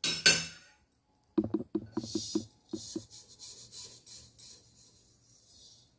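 Roasted sesame seeds being tipped out of a metal kadhai onto a steel plate: a brief scrape, a quick run of light metal knocks, then the soft hiss of the seeds sliding out, fading toward the end.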